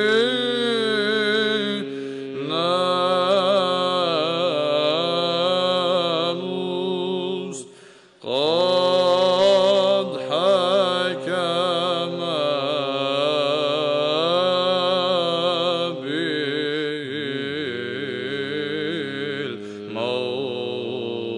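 Solo male chanter singing an Arabic Byzantine hymn of Great Friday in the sixth tone, an ornamented melody over a steady held ison drone. The voice breaks off briefly about eight seconds in, and the drone drops to a lower pitch near the end.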